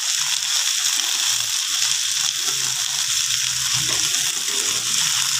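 Sliced brinjal (eggplant) sizzling in hot oil in a pan with a steady hiss as it is stirred with a spoon.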